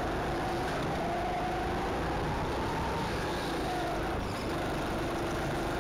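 Go-kart engine running at speed, heard from on board the kart, its pitch rising a little and falling back, under a steady rush of noise.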